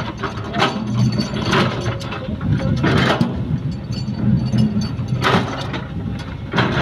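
Sumitomo hydraulic excavator's diesel engine running steadily while it digs and loads soil, with about five sharp metallic clanks and scrapes spread through the few seconds.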